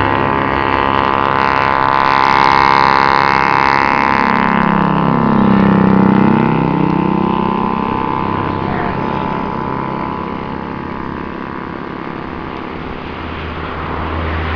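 Airbus A318 twin jet engines at takeoff power as the airliner rolls past along the runway: a loud whine of many tones over a hiss. The pitch sweeps down and back up as it passes, about five seconds in, and the sound then fades as it moves away.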